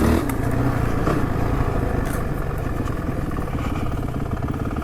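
Honda CRF450 dirt bike's single-cylinder four-stroke engine running at steady revs while riding, with a few short knocks.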